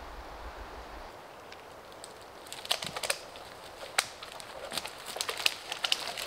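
Dead wood cracking and dry bracken crunching underfoot as a dead branch is pulled down, with a single sharp crack about four seconds in. Before that there is only a faint low rumble of wind on the microphone.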